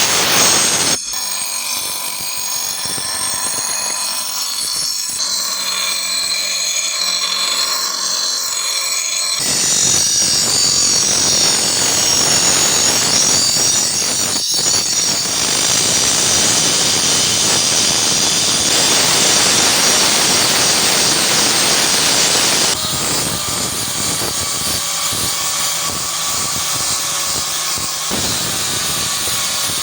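Power grinder running against steel, a steady high hiss and whine, in several cut-together stretches that change abruptly about a second in, about nine seconds in and near the end.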